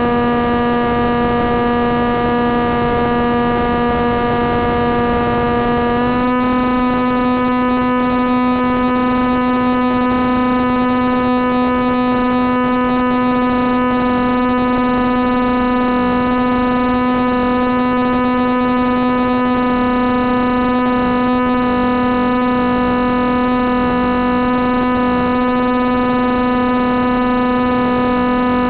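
Brushless motor of a Wing Wing Z-84 spinning its propeller at a steady speed: an even, pitched hum with many overtones that steps slightly higher about six seconds in and then holds.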